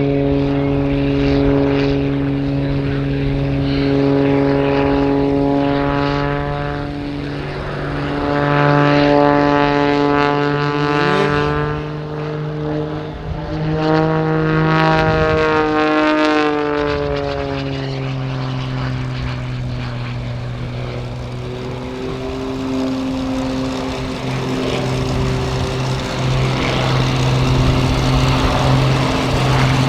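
Wolf Pitts Pro aerobatic biplane's piston engine and propeller droning through a display routine, the pitch swelling and falling about halfway through as the aircraft manoeuvres.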